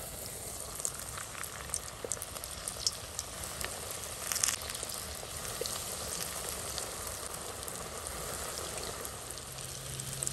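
Semolina-coated bitter gourds deep-frying in hot oil: a steady sizzle that sets in as the first piece is lowered in, with scattered crackles and pops.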